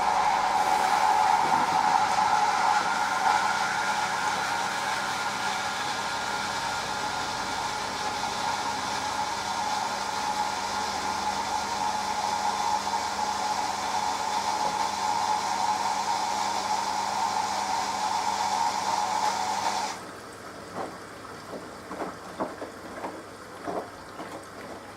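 Hoover AXI washing machine taking in water: a steady hiss with a whistling tone as water rushes in through the inlet valve, cut off sharply about twenty seconds in when the valve closes. Light splashes and trickles follow as the water settles in the drum.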